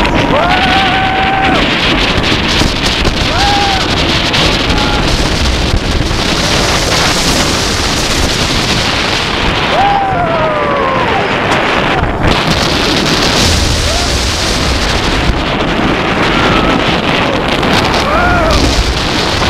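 Wind rushing hard over the microphone at speed in the front row of a B&M hyper steel roller coaster in motion. Riders' voices rise above it several times in held and falling yells and screams, the longest falling one about halfway through.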